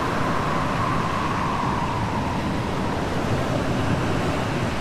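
Strong wind blowing over a snowy, rocky shore and driving drifting snow, a steady rushing with a faint whistle that fades over the first two seconds.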